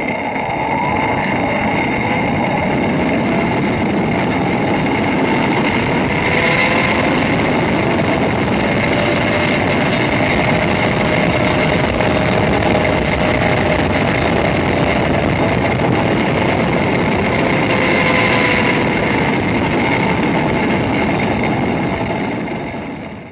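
Zip-line trolley's pulley wheels running at high speed along the steel cable, a steady whine with a few tones that slowly drift in pitch, under a heavy rush of wind on the microphone. The sound fades out near the end.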